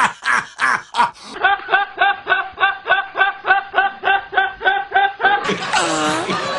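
Men laughing hard, one clip after another: a steady run of laughing bursts, about four a second, with abrupt changes at cuts about a second and a half in and again near the end.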